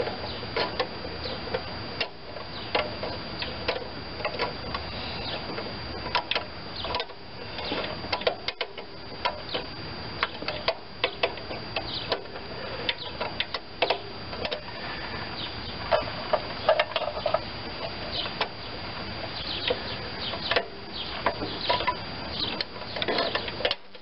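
Needle-nose pliers clicking and scraping on the thin wire governor linkage of a small Briggs and Stratton engine as the wire is bent into place: many small, irregular metal clicks and taps.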